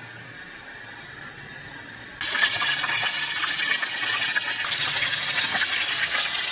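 Crumb-coated corn dogs deep-frying in hot oil: a faint sizzle at first, then about two seconds in a loud, steady sizzle of the oil bubbling hard around them.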